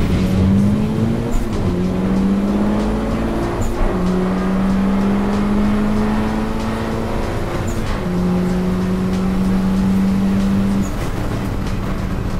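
Turbocharged Honda B18B1 1.8-litre four-cylinder on 15 psi boost with an open downpipe, heard from inside the cabin at full throttle down a drag strip. The engine note climbs in each gear and drops at upshifts about 2, 4 and 8 seconds in. It falls off near the end as the throttle is lifted.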